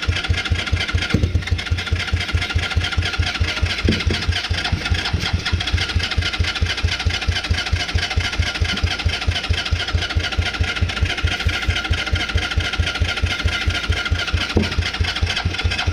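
110cc ATV engine being cranked by its electric starter without catching, a steady rhythm of compression pulses throughout; the battery is running down, in the speaker's view.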